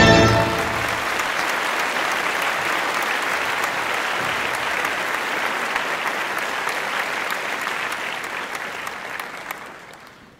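Steady applause, a dense patter of many hands clapping, that fades out over the last couple of seconds. A music track cuts off just as it begins.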